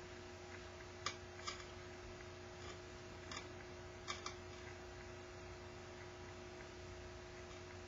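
Steady faint hum with about five small, sharp clicks in the first half, the light knocks of a lacquer brush and a ceramic bowl being handled in gloved hands.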